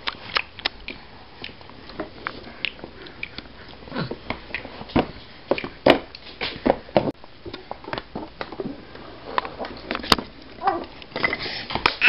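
Pet dogs eating food scraps handed or dropped to them from a high chair, making irregular short clicks and smacks, with a brief vocal sound about four seconds in and again near the end.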